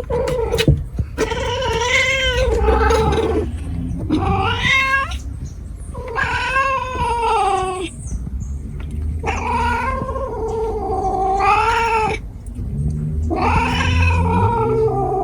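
A cat yowling in about five long, drawn-out calls, each a second or more, rising and falling in pitch.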